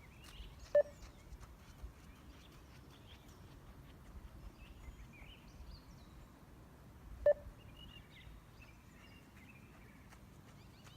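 Two short electronic beeps of a 20 m beep test (multistage shuttle-run fitness test), about six and a half seconds apart. Each beep marks the time limit for one 20 m shuttle at level 6.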